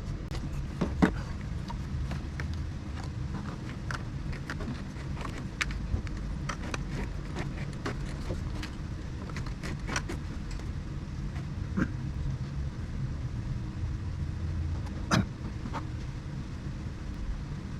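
Scattered light clicks and knocks of wiring and small parts being handled, over a steady low hum, with sharper clicks about a second in and about three-quarters of the way through.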